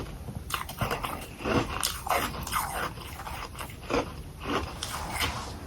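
A person biting and chewing humidifier freezer frost balls, the powdery frost crunching in an irregular run of crisp crunches.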